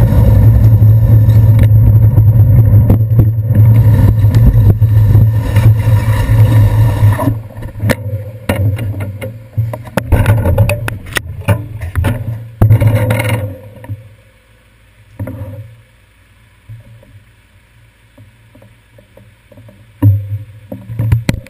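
Steady low rumble of wind and wet road noise on a handlebar-mounted GoPro Hero 2 while cycling in the rain. After about seven seconds it gives way to a run of knocks and rattles as the bike stops and is handled. Then it goes much quieter, with a couple of thumps near the end.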